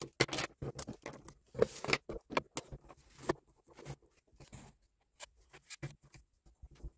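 Pencil scratching along a ruler on a planner page, among small clicks and taps of the ruler and pencil on the paper and desk. The scratches and taps come thickly for the first few seconds, then thin out to scattered taps.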